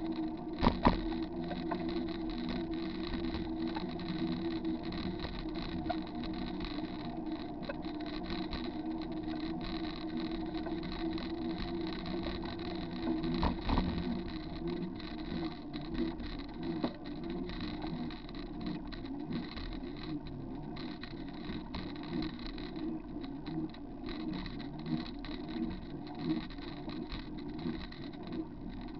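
Bicycle riding along a wet paved trail, heard through a bike-mounted camera: steady rolling tyre and wind noise with small rattles from the mount, and sharp knocks about a second in and again around fourteen seconds in.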